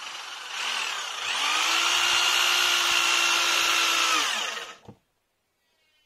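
Power drill driving a wood screw at an angle into a pine floorboard. The motor's whine climbs to full speed over the first second or so, holds steady, then winds down and stops about five seconds in.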